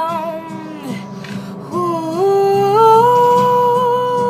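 A woman singing a ballad: the last word "sound" fades out at the start, then after a short break a wordless "ooh" rises and is held to near the end, over quiet instrumental backing.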